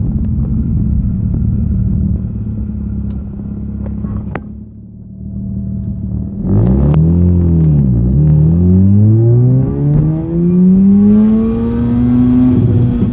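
Mazda RX-8's two-rotor rotary engine drops to a low idle about four seconds in. It then revs up as the car pulls away, its pitch rising and falling several times.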